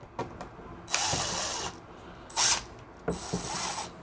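Cordless drill driving a wood screw into a pre-drilled pilot hole in thin molded timber, run in three short bursts of under a second each.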